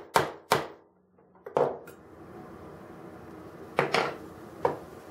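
Sharp clicks and knocks of small diecast metal and plastic model crane parts being worked apart by hand: two near the start, two more about a second and a half in, and a few more around four seconds.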